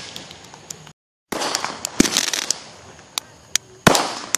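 Aerial fireworks going off: crackling stars, a bang about two seconds in, a couple of sharp cracks, and a loud bang near the end. The sound cuts out completely for a moment about a second in.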